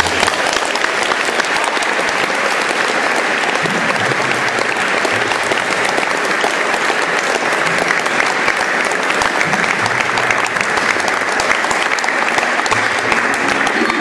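Audience applauding, a dense, steady clapping that fills the whole stretch.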